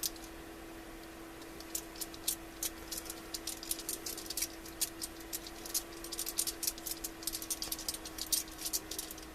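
Quick, uneven runs of small sharp metallic clicks from a freshly oiled 72-tooth EZ Red ratchet being worked, over a steady low hum. The clicks start about two seconds in and come thicker toward the end.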